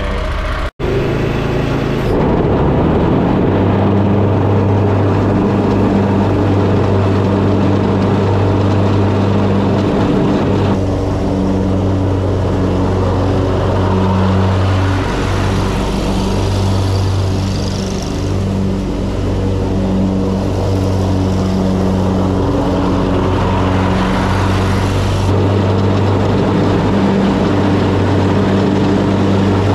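Mower engine running steadily at constant speed while cutting grass, with a low, even engine note.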